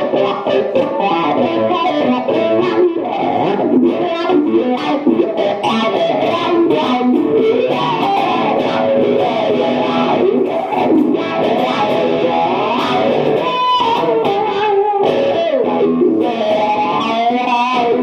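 Music led by an electric guitar played through effects, with many sliding, bending notes.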